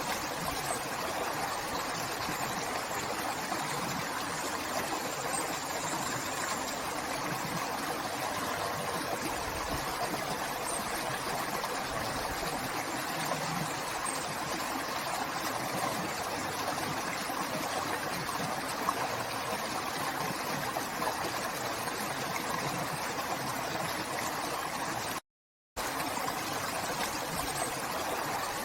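River water running in a steady, even rush, briefly cutting out to silence near the end.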